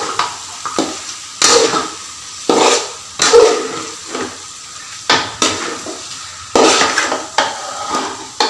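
Chicken stir-fried in hot oil in a pot, a utensil scraping and turning it in repeated strokes, about one or two a second, over a steady sizzle. The gravy has cooked off, leaving the chicken frying dry in its oil.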